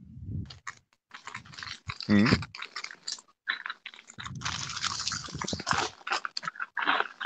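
Rustling, scraping and knocking from a phone being handled close to its microphone, coming through a video call, with a short muffled voice-like sound about two seconds in.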